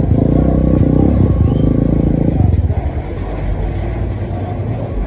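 A motor running, loudest with a pulsing hum over the first two and a half seconds, then settling to a lower steady rumble.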